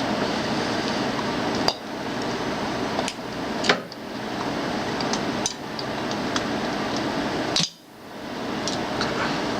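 Metal clanks and knocks from parts and tools being handled while a water cooler is dismantled for scrap, over a steady noisy background, with a few abrupt breaks in the sound.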